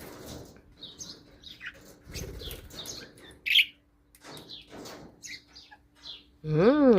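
Pet parrots chirping in many short, scattered high calls, with one louder, sharper call about three and a half seconds in.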